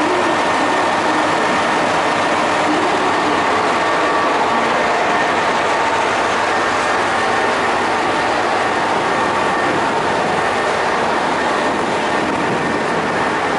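JR West KiHa 127 series diesel railcar running close beside the platform: a loud, steady engine and rolling noise with a few faint steady tones through it, easing slightly near the end.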